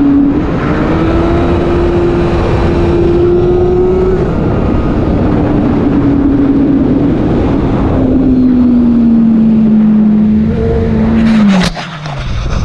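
Motorcycle engine running at road speed under heavy wind rush. The engine note climbs slowly, breaks about four seconds in and comes back lower, then sinks gradually before falling away quickly near the end.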